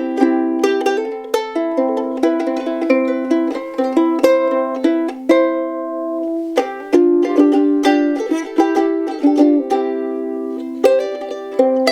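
Soprano ukulele with an Adirondack spruce top and figured Tasmanian blackwood back and sides, tuned to high G, played in an improvised run of plucked notes and chords. About five seconds in, a chord is left to ring for over a second before the picking resumes.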